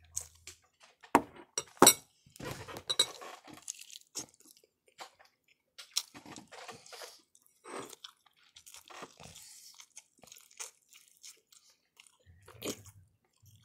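A person biting into and chewing a piece of breaded food close to the microphone: irregular crunching and mouth noises, with two sharp knocks about one and two seconds in.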